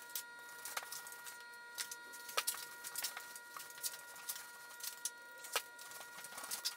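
A small hand roller spreading beads of polyurethane glue over a flat panel, making light irregular clicks and ticks, with a faint steady whine underneath.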